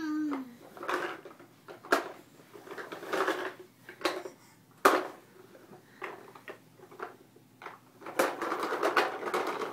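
Red plastic toy fire truck rattling and knocking as a baby pushes it across carpet and tips it over: a few sharp knocks and several clattering runs, the longest near the end.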